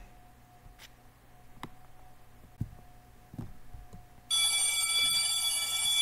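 A school bell ringing, a continuous ring of several steady high tones that starts suddenly about four seconds in and keeps going, marking the second bell that means it is time for school. Before it there is only faint room noise with a few soft knocks.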